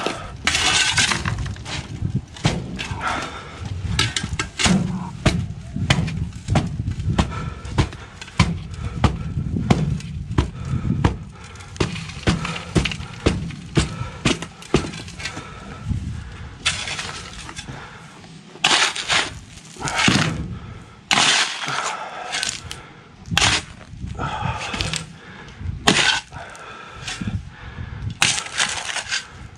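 Steel shovel digging in rocky, gravelly soil: repeated crunching scoops and scrapes at irregular intervals, with some longer scraping strokes in the second half.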